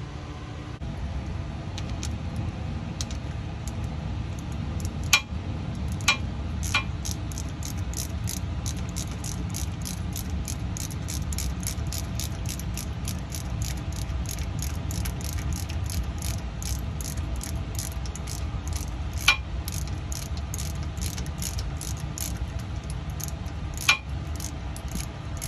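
Ratchet wrench clicking in a steady rhythm, about two to three clicks a second, while the cross-pin bolt of a GM 10-bolt differential is tightened, with a few louder metal clicks among them. A steady low rumble lies underneath.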